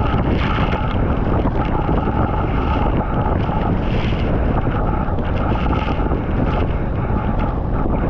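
Powerful waterfall pouring into its plunge pool at close range: a loud, steady rush of water, with spray and wind buffeting the microphone.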